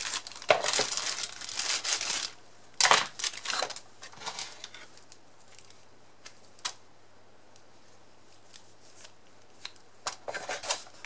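Packaging being handled: rustling and crinkling in bursts through the first few seconds, a few soft clicks, then more rustling near the end.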